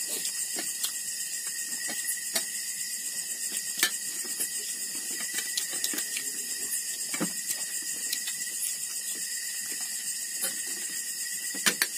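Night chorus of crickets: a steady high-pitched chirring with a fine, rapid pulse. A few sharp clicks of dishes and hands at a table cut in now and then.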